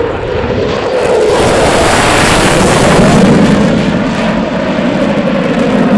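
F-15 fighter jet's twin engines at full afterburner during a steep climbing take-off: a loud jet noise that builds over the first second and peaks about three seconds in.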